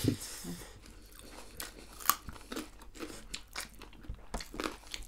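People chewing and biting food with their mouths, a run of irregular crisp crunches and small mouth clicks, one sharper crunch about two seconds in.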